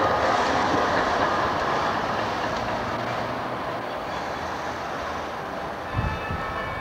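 Amsterdam GVB tram passing close by, its wheels running on the rails, the noise fading as it moves away. A low thump comes about six seconds in.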